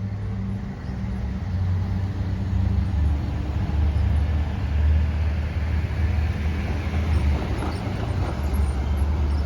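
A steady, low engine rumble with a broad noise over it, growing gradually louder.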